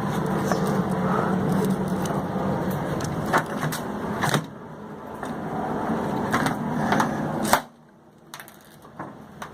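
Hand pop-rivet gun working a steel pop rivet through sheet steel, giving a series of sharp metallic clicks over a low steady hum. The rivet ends up set badly and will have to be drilled out.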